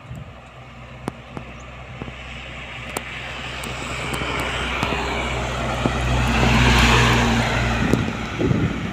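A heavy truck approaching and passing close by: steady engine drone and tyre noise grow louder to a peak about seven seconds in, then fall away, with rough choppy noise near the end.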